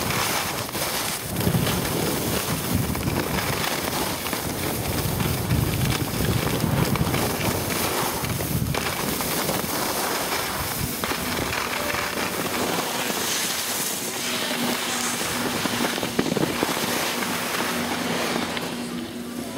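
Skis scraping and chattering over snow during a downhill run, with wind buffeting the microphone. The low wind rumble drops away about two-thirds of the way through as the skier slows near the bottom of the slope.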